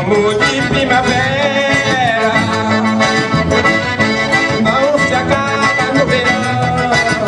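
Forró band playing live: a piano accordion carries the melody over a zabumba drum beat and electric bass.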